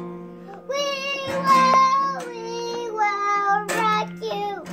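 Young child singing in long, wavering held notes, with a falling slide near the end, over a steady low hum.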